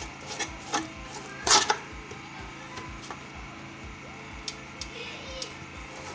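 Metal spoon scraping and knocking against a cooking pot while stirring ogbono paste in hot palm oil: a few short scrapes, the loudest pair about a second and a half in, over a steady background hum.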